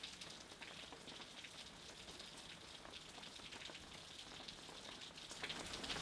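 Faint light rain falling: a soft steady hiss dotted with many small drop ticks, growing a little louder near the end.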